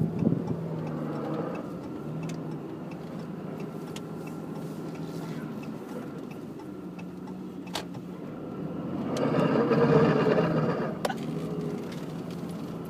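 Drivetrain of a 2014 Dodge Ram 2500 with a Cummins 6.7 L inline-six turbo-diesel and six-speed manual, running under towing load. A louder, coarse grinding swells up from about nine seconds in and fades by about eleven. The grinding shows up only when the truck is towing and not when it is unloaded; its cause is unknown.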